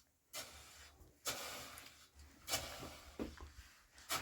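Repeated short scraping noises of soil being worked by hand, about one stroke a second.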